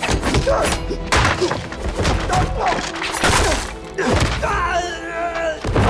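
Film fight-scene hits, punches and kicks landing as sharp thuds about once a second, over the film's score music. A voice cries out near the end.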